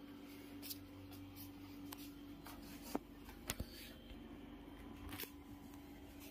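Faint rustling and handling of a foam mattress as a person moves onto it, with a few sharp clicks around three seconds in, over a steady hum.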